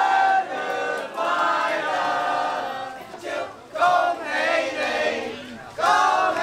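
Voices chanting and shouting in loud, drawn-out calls, several in a row with short breaks between them.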